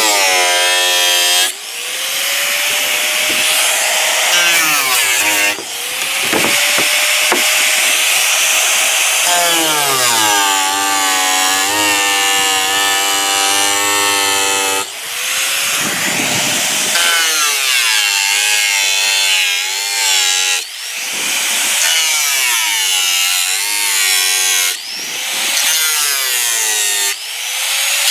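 Hand-held electric angle grinder with an abrasive disc cutting the excess plastic off a thermoformed acrylic sign letter. The motor whines continuously, its pitch dipping and recovering again and again as the disc bites into the plastic and eases off.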